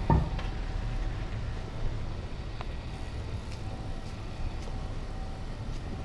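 Street ambience: a steady low traffic rumble, with a short loud sound right at the start.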